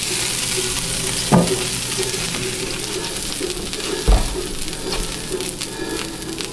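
Water droplets sizzling on a hot cast iron griddle, a steady hiss that slowly dies down; the sizzle shows the griddle is hot enough for pancakes. Two brief knocks, the louder one about four seconds in.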